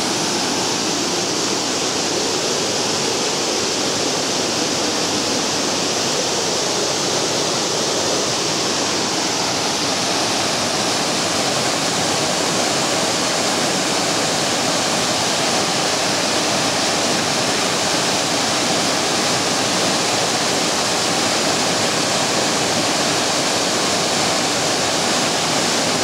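Small waterfall cascading over a rock ledge into a pool: a steady rush of falling and splashing water that does not change.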